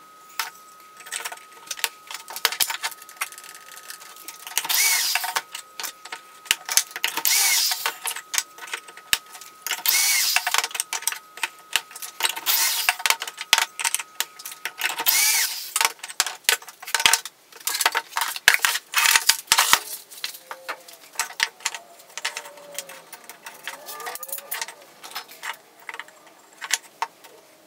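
A cordless drill boring pocket holes in pine boards clamped in a pocket-hole jig, in about five short bursts, with clamp and board clicks between them. Later, pieces of wood are knocked and shuffled on the workbench.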